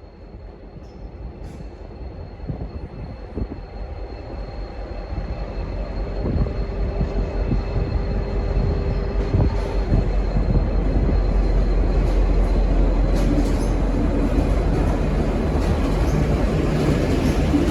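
V/Line N class diesel-electric locomotive running light, its diesel engine rumble growing steadily louder as it draws near.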